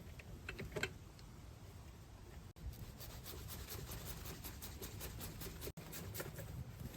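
Faint rubbing and scraping with many small, light clicks, growing busier about two and a half seconds in, as brake parts are handled and refitted by hand.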